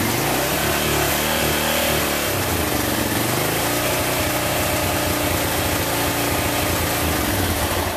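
1990 Suzuki VX800's V-twin engine, warmed up, running with the throttle held open and its note shifting about two seconds in. It is spitting and running unevenly, the bog that the owner hopes new spark plugs might fix.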